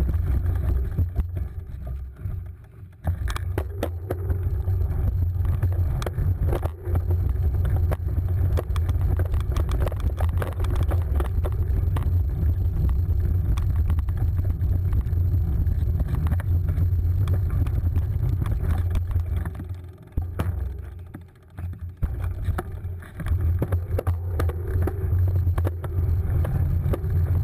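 Low rumble of wind and rolling noise on a cyclocross bike's handlebar-mounted camera as the bike rides over a dirt course, with scattered clicks and rattles from the rough ground. It drops away briefly about three seconds in and again around twenty seconds in.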